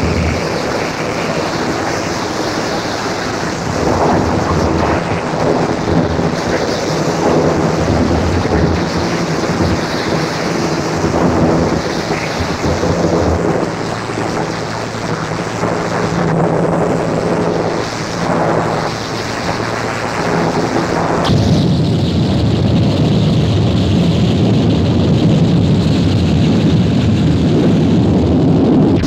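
Harsh noise music: a loud, dense wall of distorted noise over layered droning tones that pulse and shift. About two-thirds of the way through it cuts abruptly to a heavier, lower rumbling wash.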